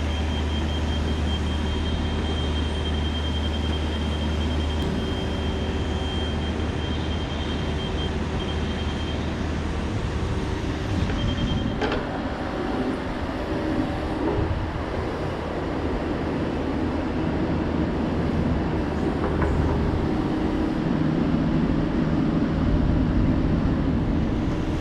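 Mini excavator's diesel engine running steadily while the machine works, with a sharp knock about halfway through and a changing hum in its note in the second half.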